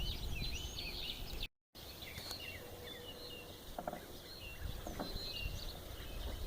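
Small birds chirping and twittering repeatedly over a low rumble. All sound cuts out for a moment about a second and a half in.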